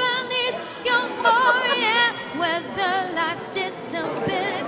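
Background music: a singing voice holding notes with a wide vibrato, in short phrases.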